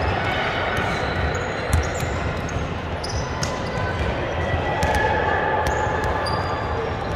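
Basketball scrimmage on an indoor court: the ball thuds on the floor and short high squeaks sound over the hall's steady din.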